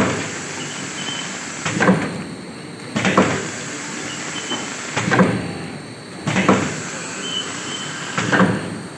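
Automatic pouch packing machine running steadily through its cycle while packing 500 g detergent-powder pouches. Each cycle gives a pair of clattering strokes about 1.3 s apart and repeats roughly every three and a third seconds, over a continuous machine noise.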